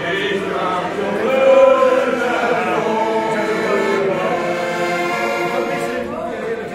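A group of people singing together to an accordion.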